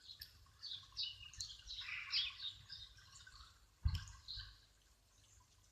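A bird chirping in quick short high notes for about three seconds, then a single dull thump about four seconds in.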